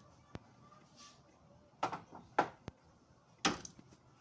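A handful of sharp clicks and knocks, about five spread over four seconds, from hand tools and parts being handled while working on the car's fuel return line. The engine is not running.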